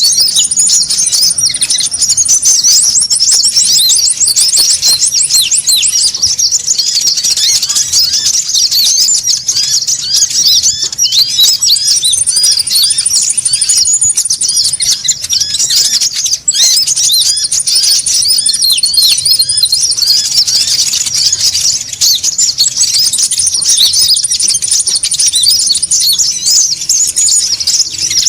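Noisy chattering of a crowd of konin birds: quick high chirps overlapping without a break, with a thin, very high trill coming in and out four times. A bird-lure (pikat) recording used to call wild konin in.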